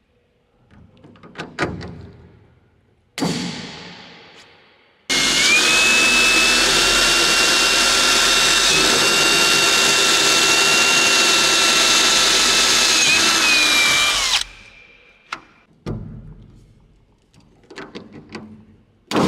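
Cordless drill running steadily for about nine seconds with a high whine, dipping briefly once near the middle and winding down at the end. Short clicks and knocks of tool handling come before and after.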